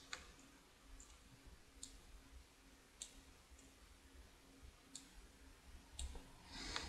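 Faint, scattered clicks of a computer mouse and keyboard, about half a dozen, a second or so apart.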